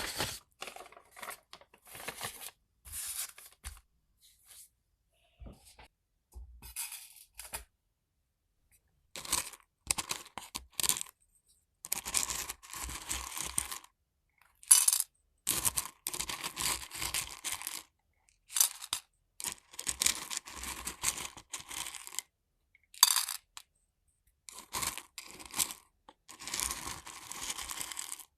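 Dried Chinese medicinal herbs being scooped and dropped, small hard pieces clicking and rustling in irregular bursts of a second or two with short pauses between.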